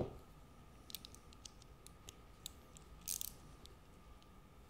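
Hand wrench tightening the bolts on a small outboard's lower unit: faint, scattered light clicks, with a short cluster of them about three seconds in.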